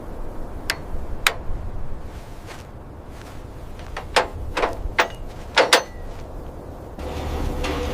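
A series of sharp knocks, about seven, at irregular spacing over a low rumble, one leaving a brief ring. A steadier low rumble comes in near the end.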